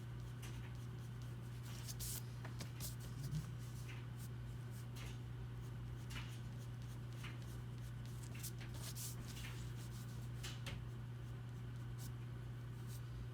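Pen or pencil strokes scratching on paper while drawing: short, irregular strokes every second or so, over a steady low hum.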